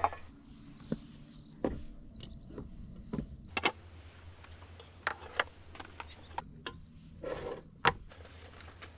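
Scattered clinks and knocks of metal camp cookware, a mug and a pot, being handled and set down on a wooden table, with a short rustling burst a little past seven seconds in.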